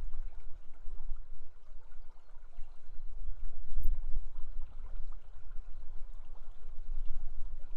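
River water rushing steadily past the camera microphone, with a low rumble under it and a brief louder surge about four seconds in.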